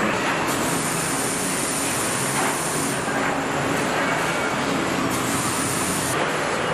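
Steady din of an automotive body-shop floor: industrial robots and machinery running, a constant hiss over a low hum.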